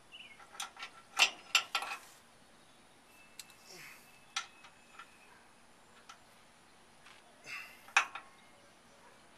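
Irregular sharp metallic clicks and clinks of a hand wrench working a side-step bolt on the truck frame, several in quick succession in the first two seconds, then a few scattered ones, the loudest about eight seconds in.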